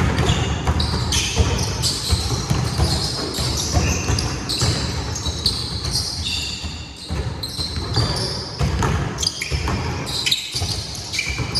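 Basketball game in play: a ball bouncing on the court, many short high sneaker squeaks on the floor, and players' voices.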